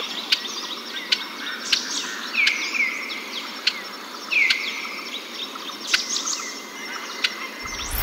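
Several songbirds singing and calling in a forest over a steady background hiss. A whistled phrase that drops and then holds level comes twice, with sharp ticks scattered between the songs.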